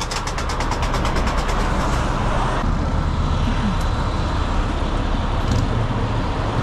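A heavy truck engine running steadily. For the first two and a half seconds a fast mechanical rattle of about ten clicks a second plays over it.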